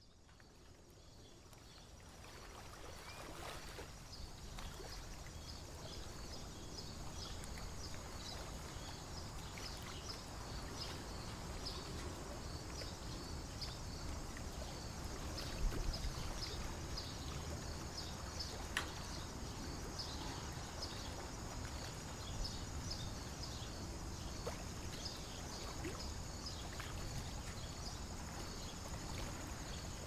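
Outdoor lakeside ambience: a steady low rumble and hiss that fades in over the first few seconds, with many short high-pitched peeps repeating irregularly throughout and a couple of sharp clicks about halfway through.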